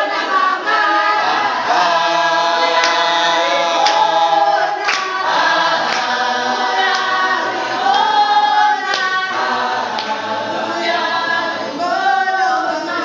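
A group of people singing a song together in unison, unaccompanied by instruments.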